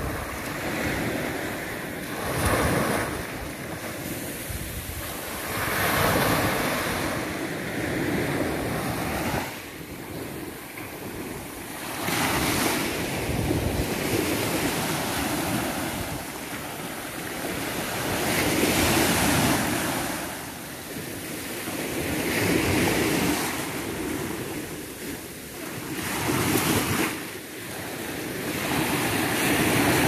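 Small sea waves breaking and washing up a sandy shore, the surf swelling and ebbing every few seconds.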